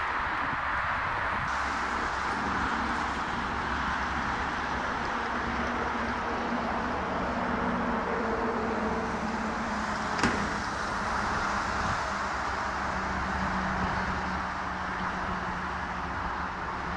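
Jet engines of an Airbus A330-300, its Rolls-Royce Trent 700 turbofans at takeoff thrust on the takeoff roll, heard from a distance as a steady rushing noise with faint hums. A single sharp click about ten seconds in.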